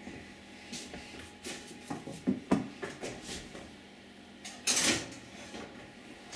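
Oven door opened with a series of knocks and clicks, then a metal baking tray carrying a foil parcel slid into the oven, a brief loud scrape about four and a half seconds in.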